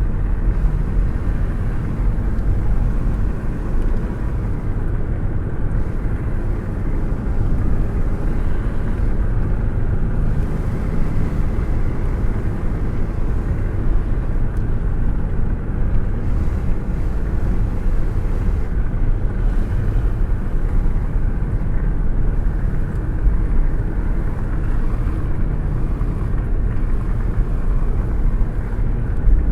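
Air rushing and buffeting against a hand held out of a moving car's window, a steady deep rush of wind noise with small gusts, over the car's road noise.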